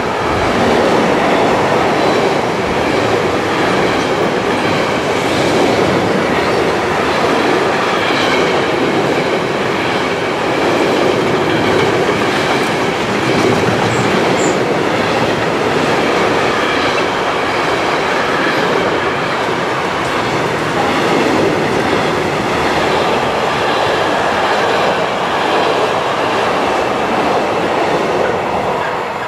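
Intermodal freight train of pocket wagons carrying semi-trailers rolling past close at speed, with a steady rumble and clatter of wheels on the rails. It starts to fade near the end as the last wagons go by.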